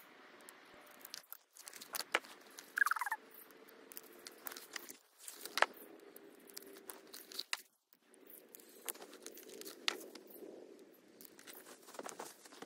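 Unboxing sounds, fast-forwarded: cardboard boxes and plastic wrap crinkling and tearing, with many sharp clicks and taps of items being handled and set down, and a few abrupt cuts.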